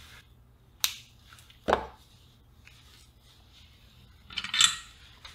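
Small handling noises at an electronics workbench: a sharp click, then a heavier knock a second later, then near the end a short, crackly run of clicks as the radio's circuit board and a length of copper desoldering braid are handled.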